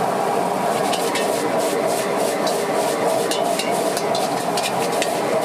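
Wok stir-frying over a high-flame burner: a metal spatula scrapes and clacks against the wok in quick, uneven strikes over a steady rush of burner noise and sizzling food.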